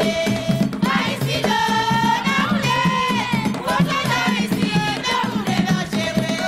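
Haitian roots (rara-style) music: a steady, driving drum pattern with rattle percussion, under a high melody line of held notes that slide between pitches.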